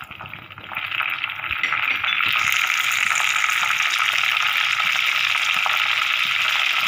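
Curry leaves sizzling and crackling in hot coconut oil in a clay pot. The sizzle builds about a second in and then holds loud and steady.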